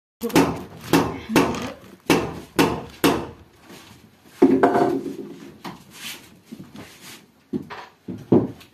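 Knocks of a hammer on wooden parts as a carved wooden altar is fitted together: six sharp blows about half a second apart, a longer rattling knock about halfway, then a few more scattered knocks.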